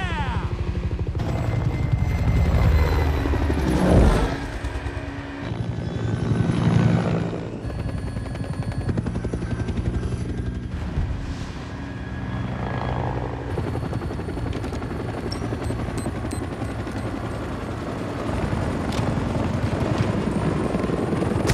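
Helicopter rotor beating steadily in an action-film sound mix, changing abruptly at each edit, with surges in level about four and seven seconds in.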